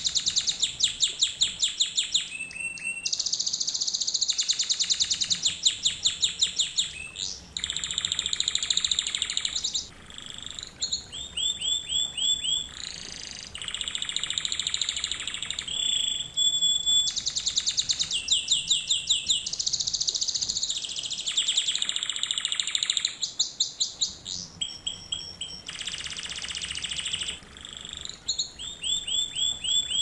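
Canary singing a continuous song of rapid trills: runs of quickly repeated high notes that switch to a new phrase every second or two, with only brief breaks between phrases.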